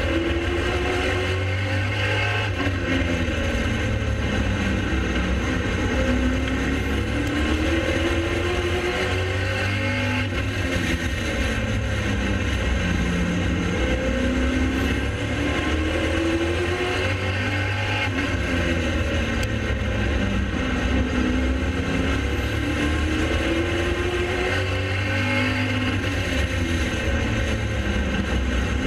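Pro late model race car V8 engines at racing speed, the engine pitch rising and falling over and over as the cars accelerate and lift around the track.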